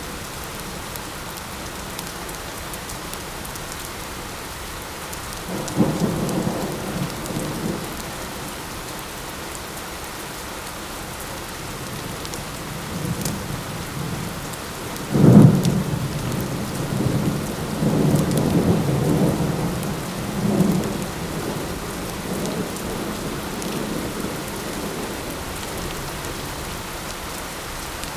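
Steady light rain falling, with thunder. A short roll of thunder comes about a fifth of the way in. Around the middle a louder clap breaks and then rumbles on in several waves for about six seconds before fading back to the rain.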